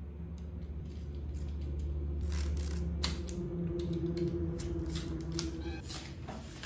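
Scattered clicks and light handling noise from a spool of 0.8 mm flux-cored MIG welding wire and a small cutting tool being handled, over a steady low hum.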